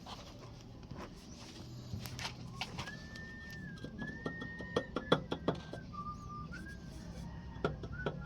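A string of sharp clinks and knocks, as of tools and engine parts being handled during an engine rebuild, over a steady low hum. From about three seconds in, a thin whistle-like tone holds and shifts in pitch a few times.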